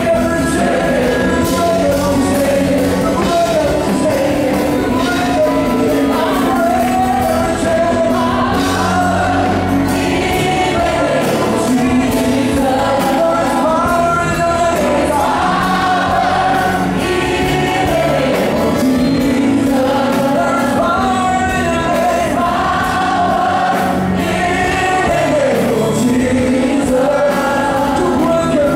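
A congregation sings gospel worship music together, led by a woman on a microphone, over steady musical accompaniment.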